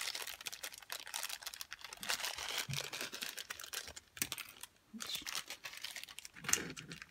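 Small plastic zip bag of capacitors crinkling and crackling in fingers as it is handled and opened, in irregular bursts, with a louder crackle about six and a half seconds in.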